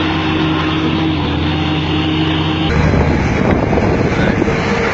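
Heavy construction machine's engine running steadily, then about three seconds in the sound changes abruptly to a rougher engine with a clattering rattle.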